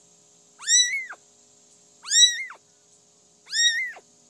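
Domestic cat meowing three times, about a second and a half apart. Each meow rises and then falls in pitch.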